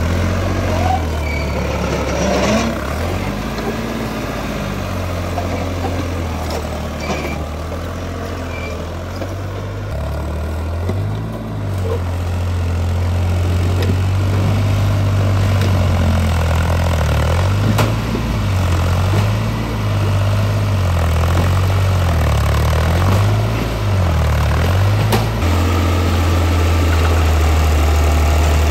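Heavy diesel engine running steadily, then its speed dipping and picking up again and again for about a dozen seconds, as if working under changing load, before settling back to a steady, slightly louder run.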